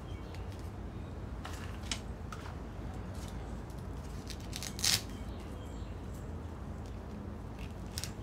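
A household stapler snapping a staple through the folded screen-door mesh, one sharp clack about halfway through, with a few fainter clicks of the fabric and pins being handled, over a steady low hum.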